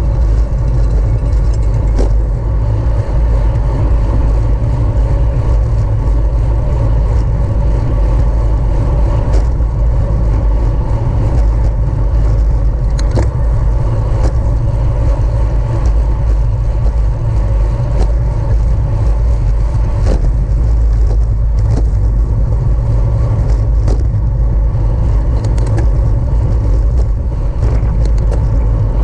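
Wind buffeting the microphone of a camera riding on a racing bicycle at speed: a loud, steady low rumble with a faint hum of tyres and drivetrain and a few faint clicks.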